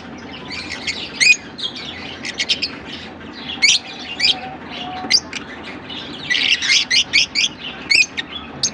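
A flock of lovebirds, Fischer's and blue masked, calling with short, sharp chirps and squawks that overlap into thick chatter about six to seven seconds in.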